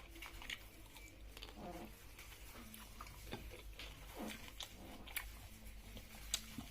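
A person chewing and biting food close to the microphone: scattered soft mouth clicks and small crunches.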